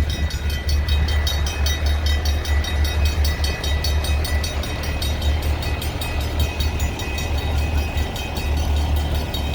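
EMD SD40 diesel locomotives idling on a stopped freight train: a steady low throbbing rumble with a thin constant whine above it.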